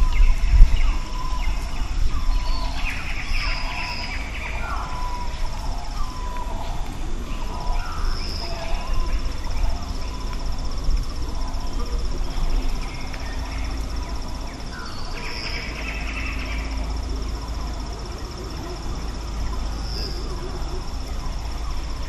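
Countryside birdsong: a bird repeats short call notes over the first several seconds, with other birds chirping now and then, over the steady high buzz of insects. Low wind rumble on the microphone is strongest at the start.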